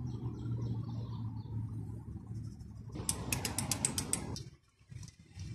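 Ratchet wrench on a 27 mm socket clicking in a quick, even run, about eight clicks a second, starting about three seconds in, as the front hub nut is turned off. A steady low hum sits underneath.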